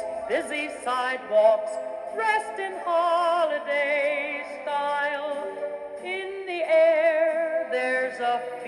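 Music with a singing voice, held wavering notes, played from an MP3 sound board through two small down-firing speakers in a Lionel O gauge Polar Express baggage car. Thin, with almost no bass.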